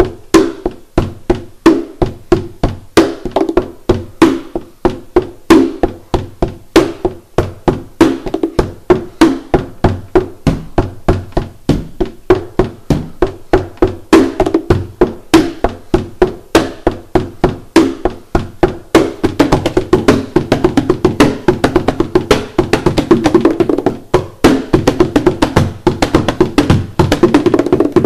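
Hand percussion played on the front and back of an acoustic guitar's body and on a cardboard box: sharp slaps and knocks in a steady beat. The playing gets busier and fuller about two-thirds of the way through.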